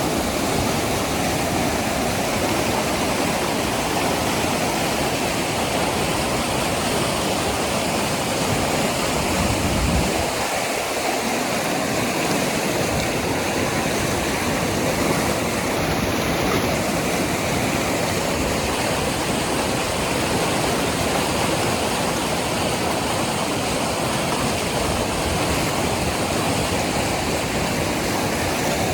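The Lidder, a glacier-fed river, rushing over its bed in a loud, steady wash of water.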